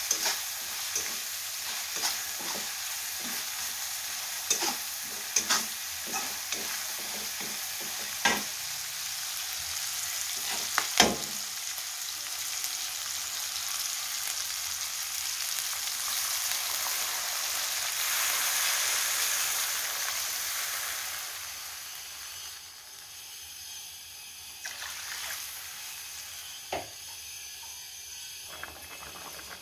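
Chopped chilies and garlic sizzling in hot oil in a pan, stirred with a spatula that clicks and scrapes against the metal many times in the first half. A little past two-thirds of the way in the sizzle dies down, and by the end liquid in the pan is bubbling quietly.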